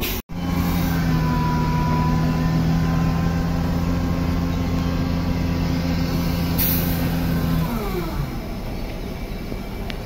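Heavy diesel engine, most likely the mobile crane's, running at steady raised revs, then slowing with a falling pitch about three-quarters of the way through.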